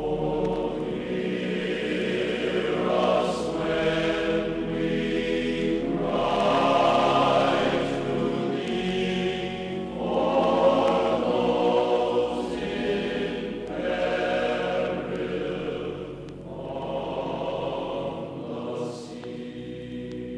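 Ambient choral music: voices hold long sustained chords that swell and ease in slow phrases of a few seconds each.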